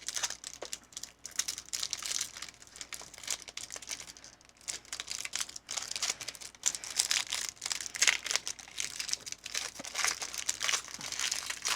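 Foil wrapper of a Pokémon Surging Sparks booster pack crinkling and tearing as it is handled and ripped open: a long run of dense, crackly rustling.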